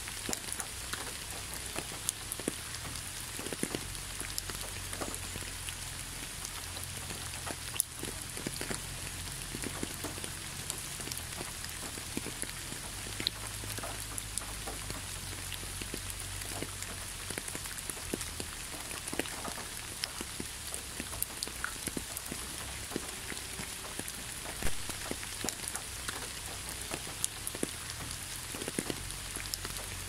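Steady rain falling: an even hiss dotted with many single drop hits, with a couple of louder hits about eight seconds in and near twenty-five seconds.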